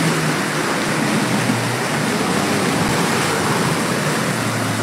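Land Rover Defender 90 P300's turbocharged four-cylinder petrol engine running steadily as its tyres churn through a muddy, water-filled rut, under a constant rush of splashing water.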